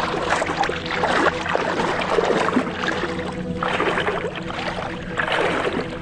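Shallow seawater splashing and sloshing around wading legs, heard up close, in irregular surges as each step churns the water.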